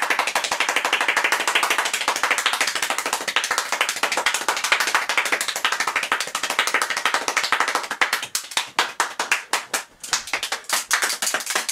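One person speed-clapping, a very fast continuous patter of sharp claps at a stated rate of fourteen claps a second. About eight seconds in, the claps come farther apart and uneven for a few seconds before running fast again near the end.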